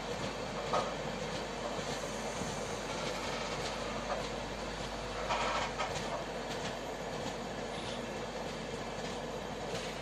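Express passenger train running along the track, heard from its own coach: a steady rushing of wheels on rails with a few scattered knocks as the wheels cross the track.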